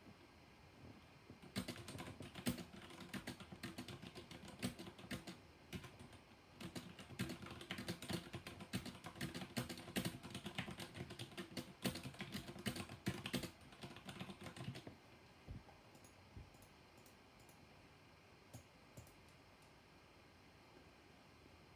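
Typing on a mechanical keyboard with black linear switches: a fast run of key clacks with a short pause about six seconds in. It stops about two-thirds of the way through, leaving only a few single keystrokes.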